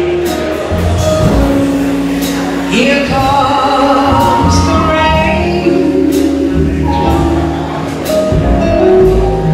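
A small live band playing: upright bass notes underneath, a drum kit with cymbal strikes, and a wavering melody line on top.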